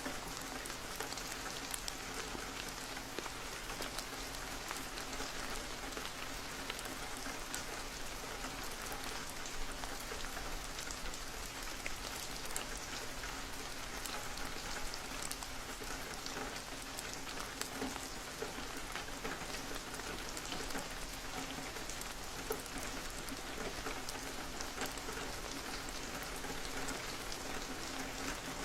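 Steady rain falling, with many small drop hits over an even hiss.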